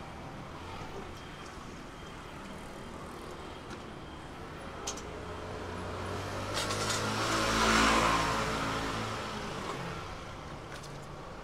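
A motor vehicle drives past close by, its engine swelling to a peak about eight seconds in and then fading away, over steady street traffic. A few faint clicks come before the peak.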